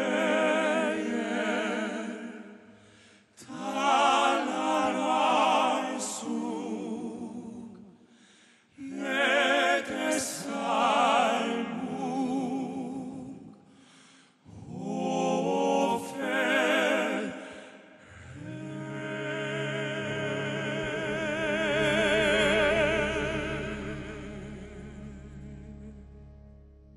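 Male crossover vocal quartet singing a slow ballad in Hungarian, in full classical-style harmony with vibrato. Four phrases are followed by a long held final chord, about 18 s in, that fades out slowly while a low steady bass tone sounds beneath it.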